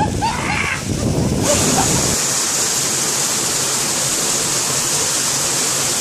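Waterfall rushing steadily into a plunge pool, with a few faint shouts in the first second. About a second and a half in, the sound changes abruptly to a brighter, steady hiss of falling water, with the low rumble gone.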